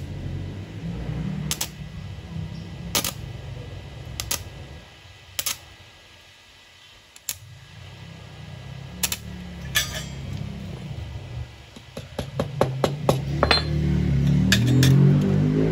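DC stick-welding arc on thin 0.7 mm stainless sheet, crackling with sharp pops as the electrode is struck and restarted in short bursts. The pops come a second or more apart at first and close together near the end.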